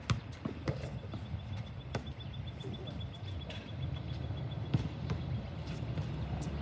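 Outdoor basketball court sounds: scattered short knocks and thuds of ball and feet over a steady low rumble of wind or handling on the microphone. A faint, fast-pulsing high trill sounds from about a second in until past the middle.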